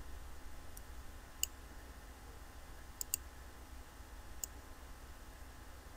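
Faint computer mouse button clicks: single clicks about one and a half seconds in and near the end, with a quick double click about three seconds in, over a low steady hum.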